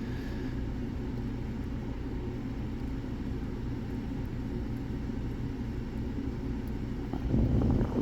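Steady low mechanical rumble in the background, with a louder burst of noise starting about seven seconds in.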